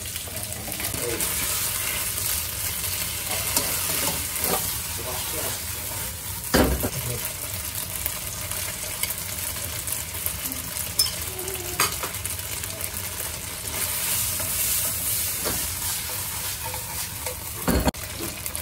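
Shrimp sizzling in hot oil in a nonstick wok as they are stirred with a slotted spatula. A few sharp knocks of the spatula against the pan stand out above the steady sizzle.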